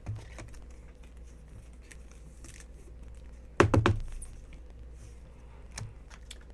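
A stack of trading cards knocked on a table about four times in quick succession, a little past halfway, to square the stack, with single lighter taps near the start and near the end. A steady low electrical hum runs underneath.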